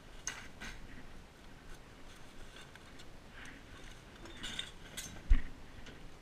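Trash being handled and thrown into a garbage bin: a plastic bag crinkling and cardboard rustling in short scrapes, with one loud, sharp thump a little after five seconds in.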